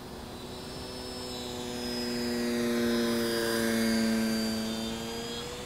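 Electric motor and propeller of a 55-inch Super Decathlon RC model plane making a low pass. The steady hum grows louder to a peak a few seconds in, then fades, dropping slightly in pitch as the plane goes by.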